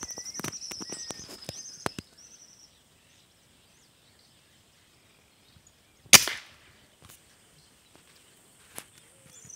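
A single air rifle shot about six seconds in: a sharp crack with a brief ring-off. Before it, in the first two seconds, there is a high chirping trill with light clicks and rustles.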